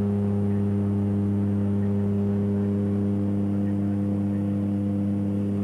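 Propeller aircraft's engine and propeller droning steadily, heard from inside the passenger cabin: a deep, even hum with several steady tones stacked over it.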